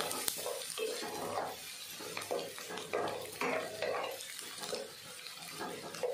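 A spatula stirring and scraping chopped onions frying in oil in a nonstick wok, a series of irregular scraping strokes over a light sizzle. The onions are being browned to golden and kept moving so they don't burn.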